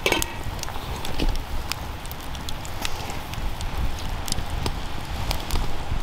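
Campfire crackling, with scattered sharp pops over a low rumble, and a short falling squeak right at the start.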